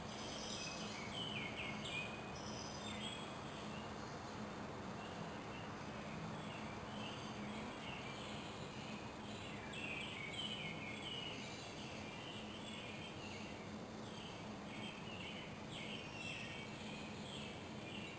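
Wild birds chirping and singing in woodland, with many short calls throughout, over a steady background hiss and a faint low hum.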